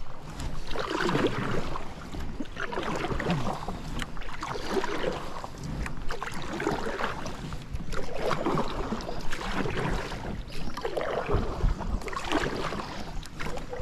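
Kayak paddle strokes through the water, a swishing splash that swells and fades about every one and a half to two seconds.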